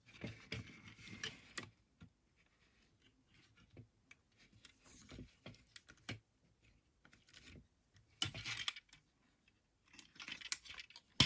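Small plastic clicks, taps and light scrapes from handling a Transformers action figure and its upgrade-kit parts, coming in scattered little clusters.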